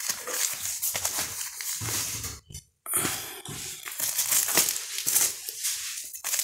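Clear plastic sleeves on vinyl LP records crinkling and rustling as a hand flips through the stack, one record after another. The sound drops out briefly a little before halfway.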